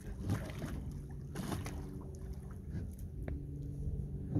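A boat motor runs steadily, with a few splashes from a big blue catfish thrashing at the surface beside the boat.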